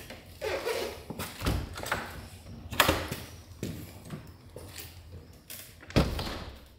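Boots stepping across a stone flagstone floor and out through a pair of double doors, with clicks and knocks from the doors being handled. The doors are pulled shut with a bang about six seconds in.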